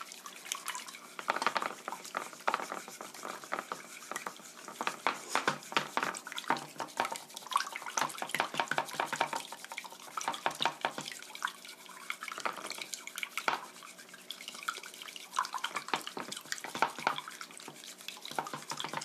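Wooden chopsticks beating raw eggs in a glass bowl: rapid, uneven clicking against the glass with the wet slosh of the liquid egg. The eggs are being whisked until no clumps of white remain.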